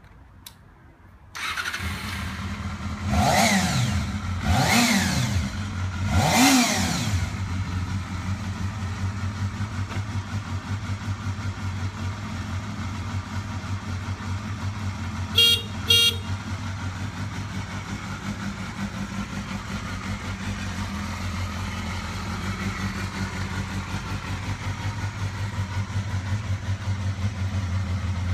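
Honda CBR sport motorcycle engine starting about a second in, revved three times with quick throttle blips, then idling steadily. Two short beeps of the horn sound around the middle.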